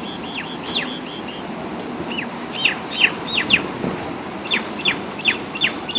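Birds giving sharp, repeated chirps, each falling quickly in pitch, coming faster and louder after about two seconds, as the birds fight.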